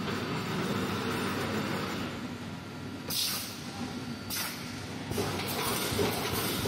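Automatic wire mesh welding machine for 3–8 mm wire running, a steady mechanical clatter with two short hisses about three and four seconds in. From about five seconds in the noise grows busier as the machine welds, throwing sparks.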